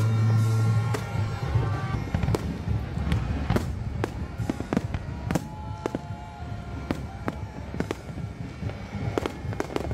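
Aerial fireworks going off in a quick, irregular run of bangs, about one or two a second, with music playing underneath. A held low note in the music stops about a second in, and the bangs carry on to the end.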